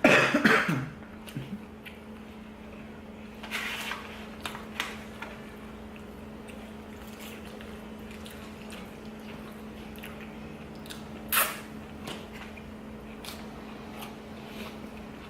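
A person chewing and biting a lettuce wrap close to the microphone: moist mouth sounds with scattered short crunches and clicks, the loudest about eleven seconds in. A steady low hum runs underneath.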